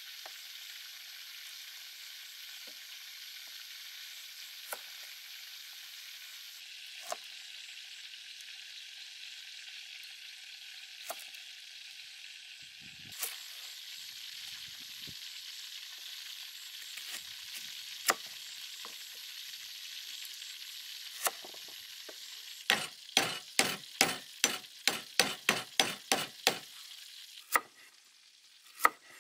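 Kitchen knife working on a wooden cutting board over a steady high hiss: a few scattered taps, then about 23 seconds in a quick run of a dozen or so chops, followed by a couple of single cuts.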